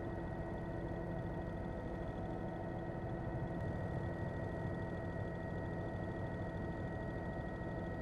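Helicopter engine and rotor noise, a steady drone with constant whining tones over a fast low pulsing.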